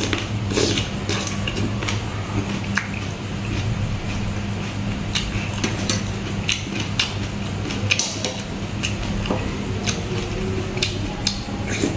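A metal spoon clinking and scraping against a plate of spicy salmon salad, with close-miked eating sounds: a string of irregular sharp clicks over a steady low hum.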